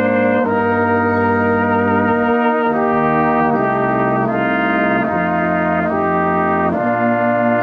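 Brass band playing a slow, hymn-like piece in held chords that move on about once a second.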